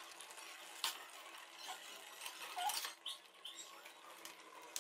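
Faint light clinks of a wire-mesh strainer against a metal cooking pot, with dripping water, as boiled spaghetti is scooped out of its cooking water. A single sharper tick comes about a second in, and a few softer ticks and drips come around the middle.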